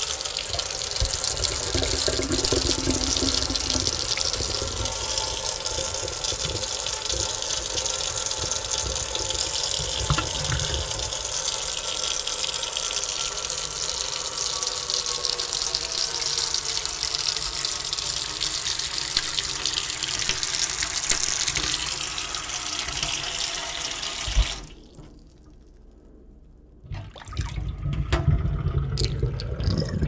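Sink faucet running in a steady, full stream, shut off abruptly about 24 seconds in. After a short pause, water runs again for the last few seconds.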